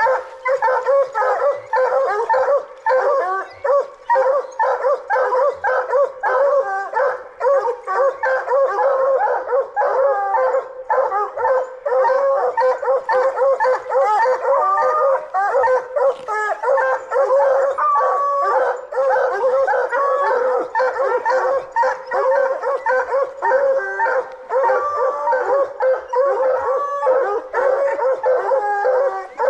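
A pack of coonhounds barking treed at the base of a tree, a steady, overlapping chorus of rapid barks and howls with no letup: the sign that the dogs have game, here a raccoon, treed.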